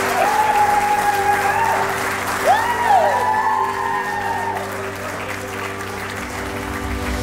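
Wedding guests applauding and cheering over background music with sustained notes, with a whoop about two and a half seconds in. The applause thins out in the second half.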